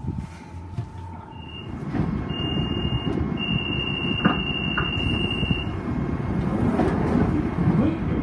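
London Underground Central line train at the platform: a high electronic warning tone sounds in three bursts, the last and longest lasting about two seconds, over the train's low running rumble, which grows louder from about two seconds in.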